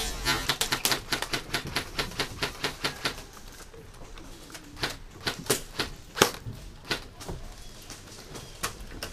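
Airsoft guns firing: a fast string of sharp clicking shots, several a second, for about three seconds, then scattered single shots, one louder than the rest about six seconds in.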